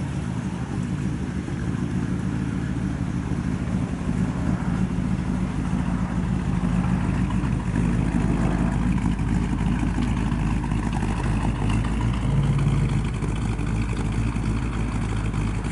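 A 1955 Chevrolet Bel Air's 350 V8 with a four-barrel carburettor and Ram Horn exhaust idling steadily, heard out of the tailpipes.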